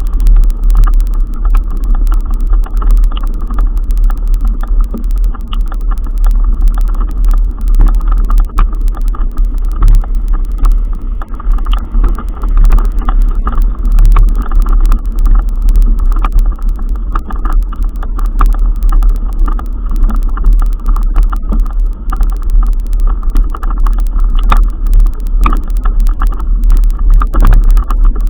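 Loud steady rumble of a moving vehicle, with frequent small rattles and knocks throughout.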